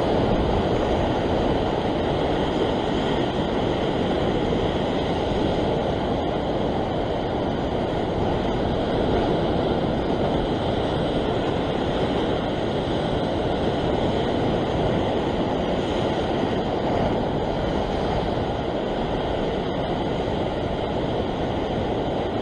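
Steady rushing of sea surf washing over and around the rock ledge, an even, unbroken wash with no distinct breaks.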